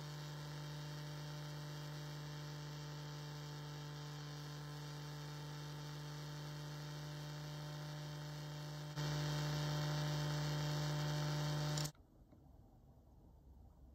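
Small watchmaker's lathe motor running with a steady hum while a screw head spinning in its collet is filed down by hand. The hum steps louder about nine seconds in, then cuts off suddenly near the end as the lathe stops.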